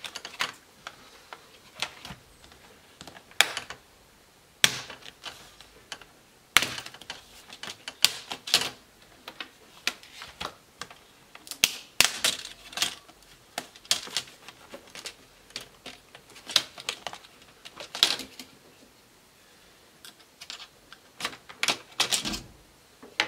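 Plastic display bezel of a laptop screen lid being prised off by hand: irregular sharp clicks and snaps as its retaining clips pop loose, coming in clusters with short pauses between.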